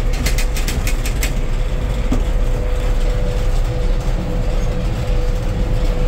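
Gleaner combine running, heard from inside its cab: a steady low drone with a steady whine over it. A rapid clicking rattle sounds for about the first second.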